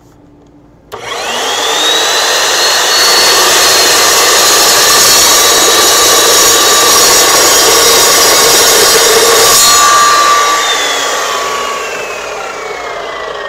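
Evolution S355MCS metal-cutting miter saw starting about a second in with a rising whine, its blade cutting through a half-inch-thick steel bar at a 45-degree miter. The cut ends near ten seconds in and the motor winds down with a slowly falling whine.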